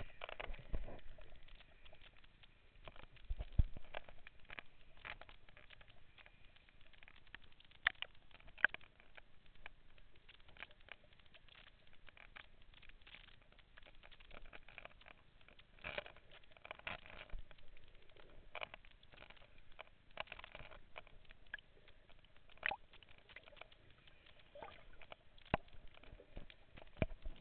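Underwater sound picked up by the camera: faint, irregular clicking and crackling, with a few louder sharp pops scattered through and one dull thump.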